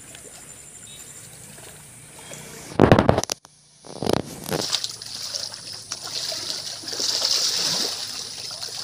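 Water splashing and sloshing as feet wade through a shallow muddy stream and a hand net is swept through it. A loud low thump comes just before three seconds in, then after a brief break a steady splashing hiss of water takes over.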